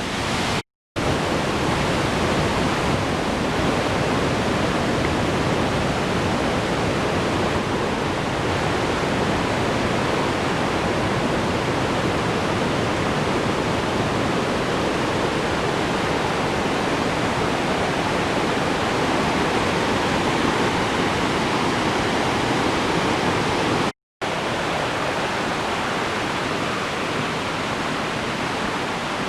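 Waterfall (Sgwd y Pannwr, the lower part of Sgwd Isaf Clun-Gwyn) rushing in a steady, dense roar, swollen after days of rain. The sound cuts out to silence twice for a split second, once about a second in and once about five seconds before the end.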